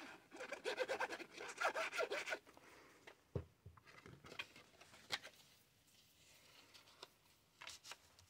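Fine-tipped glue bottle nozzle scratching quickly back and forth across cardstock as a squiggle of liquid glue is drawn on, for about two and a half seconds. After that come quieter paper handling sounds with a few light taps and a soft knock.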